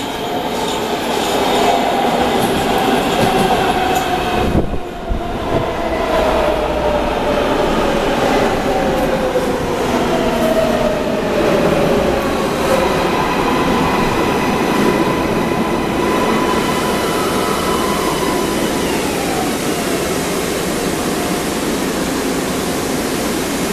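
MARTA rapid-transit train pulling into the station and braking to a stop, with wheel and rail noise. Its motors give off a whine of several tones that falls steadily in pitch as the train slows, then holds and dies away a few seconds before the end as it halts.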